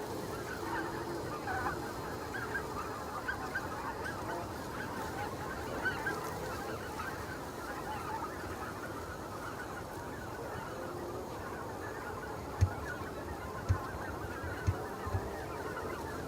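A flock of greater white-fronted geese calling, many overlapping honking calls at once. A few short low thumps come near the end.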